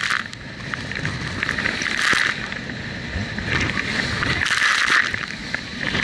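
Small open boat running through rough sea: hull slapping on the waves, with surges of hissing spray and wind buffeting the microphone about every second or two.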